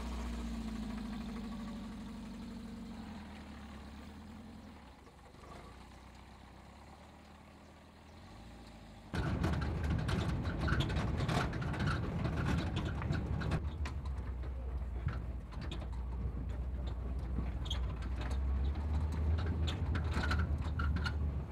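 Small pickup truck's engine running and fading away over the first several seconds. About nine seconds in, a sudden change to a loud steady rumble with many short knocks and rattles, as heard from the truck's open bed while it drives over a rough forest dirt track.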